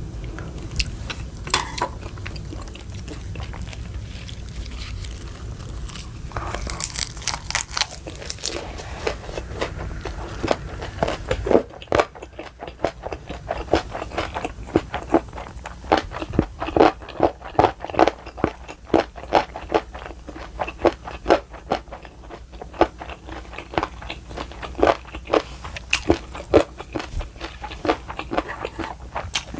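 A person chewing and biting food up close, with crisp crunching: many quick clicks that grow denser about six seconds in and stay steady through the second half.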